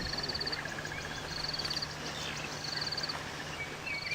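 Wildlife calling: a short, high, buzzy trill repeats about every second and a half over a steady pulsing trill and scattered bird chirps, with a low steady hum underneath.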